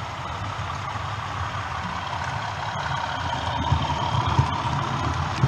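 OO gauge model train running along the track: motor hum and wheels rumbling on the rails, getting louder as it comes closer, with sharp clicks over the rail joints in the second half.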